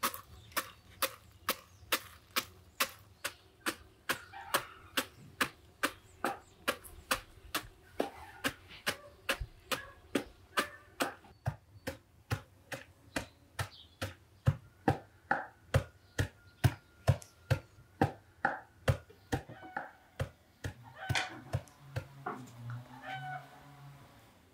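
Pestle pounding walnut kernels in a carved wooden mortar: a steady run of sharp knocks, about two a second, crushing the nuts. The pounding stops near the end.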